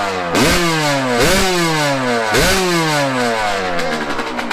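Yamaha YZ125's 125cc single-cylinder two-stroke engine blipped three times, each rev rising sharply and then falling back toward idle. The carburetor's air screw and idle have just been adjusted to cure rich running, and it is running way better.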